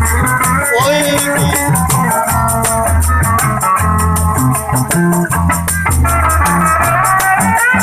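Music: a bass line and a plucked-string, guitar-like melody over a fast, steady percussion beat.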